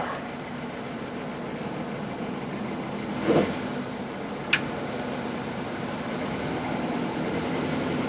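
2008 Toyota Corolla's four-cylinder engine running in Drive against the brake, heard from inside the cabin, with cylinder 1 misfiring from a failing ignition coil; the revs creep up slightly. A brief sound about three seconds in and a sharp click about a second later.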